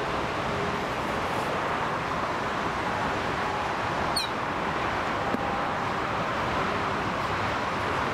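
Airbus A321 jet engines at low approach power, a steady rushing noise as the airliner flares to land.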